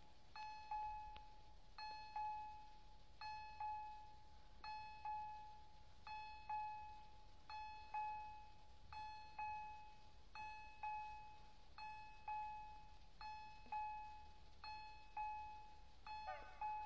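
Railway level-crossing warning bell ringing a repeated double strike, ding-ding about every one and a half seconds, each strike ringing on briefly. It is the crossing's warning that a train is approaching, with the barriers down.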